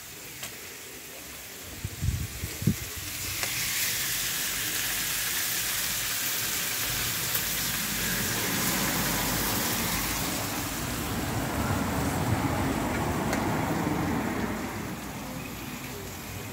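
Meat sizzling and frying on a hot griddle plate over a wood fire, a steady hiss that swells about three and a half seconds in and fades near the end. A few sharp knocks come about two seconds in.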